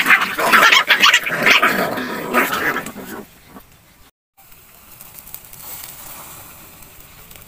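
Puppies growling and barking in a rough scuffle for about three seconds, then a faint steady hiss.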